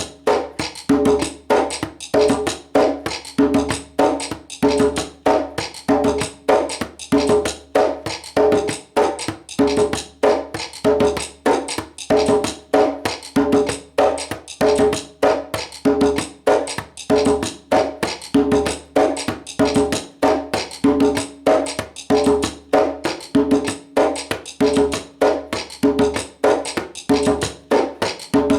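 Basic salsa groove played on a djembe, open and slap tones, over a clicking cascara pattern and son clave at an easy, steady tempo.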